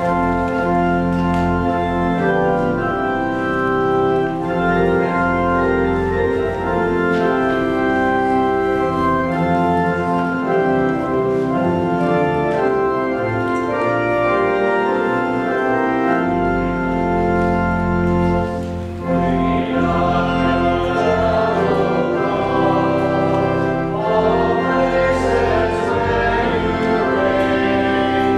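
Church organ playing sustained chords at the close of Mass; about two-thirds of the way through, voices singing join in.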